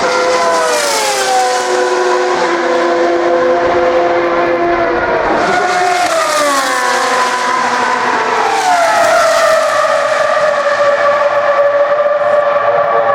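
High-revving single-seater race car engine, its pitch dropping in quick steps as it shifts down several times, then holding a steady note.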